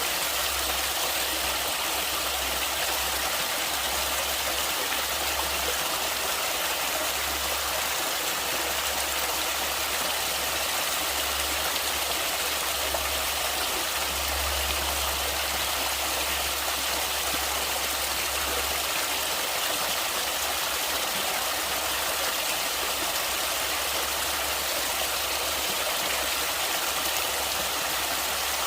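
River water flowing steadily, an even unbroken hiss, with an uneven low rumble underneath that swells around the middle.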